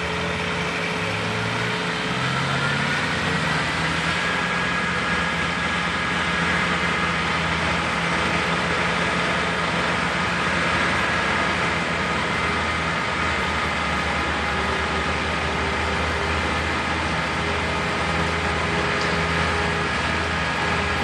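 A large engine running steadily, its revs rising a little about two to four seconds in and then holding.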